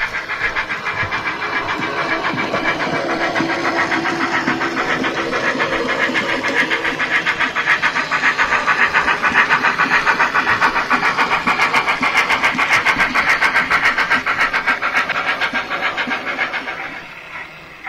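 N gauge model of an M7 tank locomotive, a 2mm-scale etched brass kit, running past on the track: its old motor growls, with a rapid, regular clicking of the wheels over the track. The sound swells as it passes and fades quickly near the end as the train moves away.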